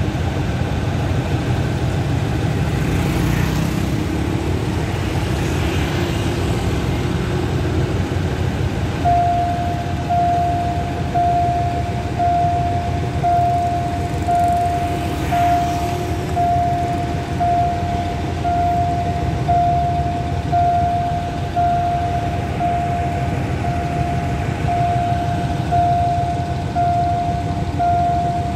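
Steady low rumble of road traffic and the train at a level crossing. About a third of the way in, the crossing's warning signal starts sounding, a single beep-like tone repeating about once a second.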